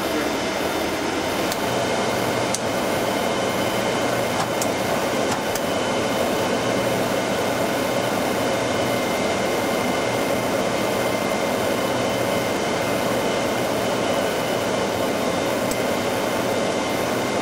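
Steady rush of a Boeing 737-100's Pratt & Whitney JT8D turbofan idling just after start, heard from inside the cockpit, with a few light clicks of overhead-panel switches being set.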